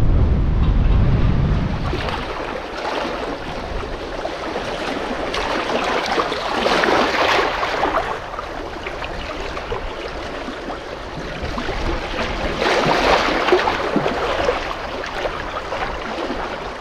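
Muddy incoming tide of the Severn Estuary washing in over mud and weed-covered rocks at the water's edge, swelling twice, about six seconds in and again around thirteen seconds. Wind buffets the microphone in the first couple of seconds.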